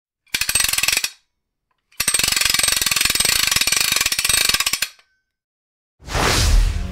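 Title-card sound effect: a rapid run of mechanical clicks, like a ratchet or clockwork being wound, lasting about a second, then a second, longer run of about three seconds after a short silence. Near the end a whoosh swells up.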